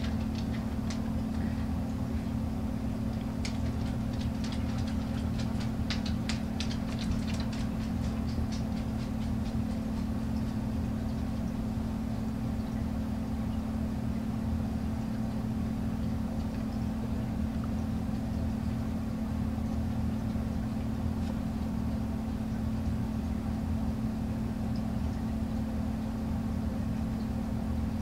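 Steady low mechanical hum, like a motor or appliance running, with a run of faint light ticks between about three and nine seconds in.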